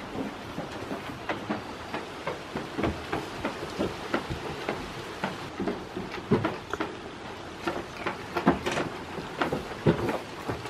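Irregular light taps and knocks, a few a second and of uneven strength, with a couple of louder knocks near the end.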